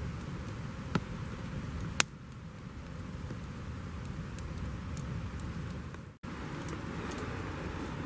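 Campfire burning with a steady rushing noise and two sharp pops about a second apart.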